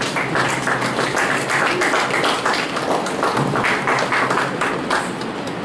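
Audience applauding, dense handclaps that die away about five seconds in.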